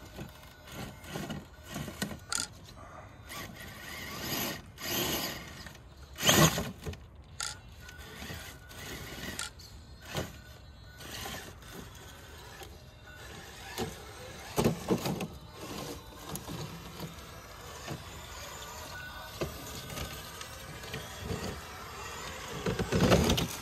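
Traxxas TRX-4 RC crawler's Castle 1412 brushless motor and gearing whining in short throttle bursts as the truck climbs over rocks, with tyres grinding and stones clacking. The loudest bursts come about six seconds in and near the end.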